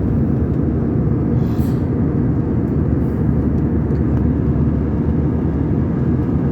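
Steady low rumble of a jet airliner's cabin in cruise: engine and airflow noise heard inside the passenger cabin, with a faint brief hiss about one and a half seconds in.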